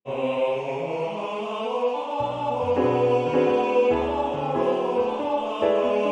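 A tenor singing a Spanish-language art song with piano accompaniment. The music starts abruptly, and low piano bass notes join about two seconds in.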